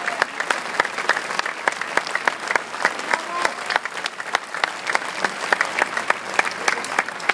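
Concert audience applauding: dense, irregular hand claps from a large crowd.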